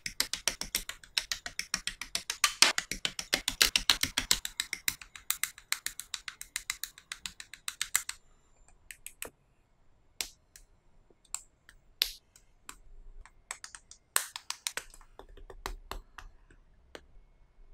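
Small hard plastic clicks from handling, cutting and snapping together plastic model kit parts with hobby nippers: a fast, even run of clicks for about the first half, then single snips and clicks spaced apart.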